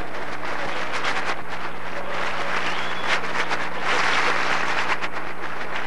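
Large theatre audience applauding after a punchline, with the applause swelling about four seconds in.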